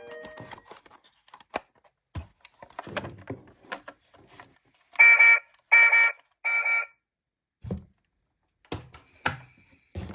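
Light plastic clicks and knocks from a toy car, with three short, evenly spaced electronic beeps about halfway through, the loudest sound here. A few dull thumps follow, and a louder clatter starts at the very end.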